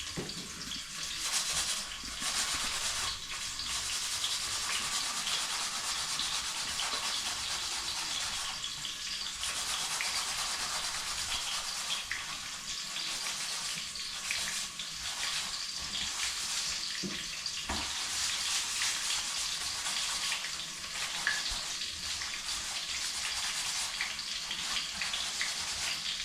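Food frying in hot cooking oil in a pan: a steady sizzle with small crackles throughout.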